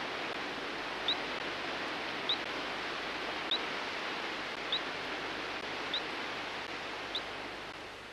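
Radio-telemetry receiver picking up a radio-tagged sockeye salmon's transmitter: a short rising beep about every 1.2 seconds over a steady hiss. The hiss fades near the end.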